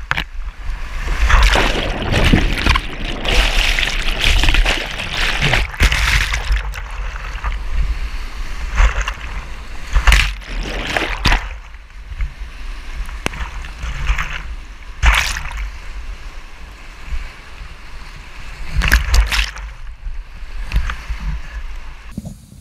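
Whitewater of a river in high flow rushing and churning around a kayak running a rapid, with loud splashing surges every few seconds over a deep rumble. The sound drops away abruptly near the end.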